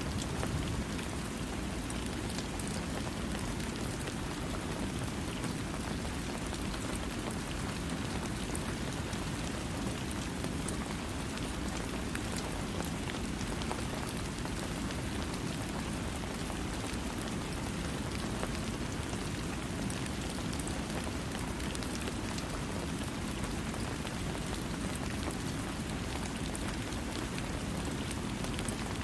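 Steady rain falling, a constant even hiss with a low rumble, with no thunder.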